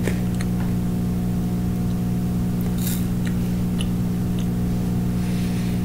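Steady low electrical hum, with a few faint crunches of chocolate wafer bites being chewed, about three seconds in and again near the end.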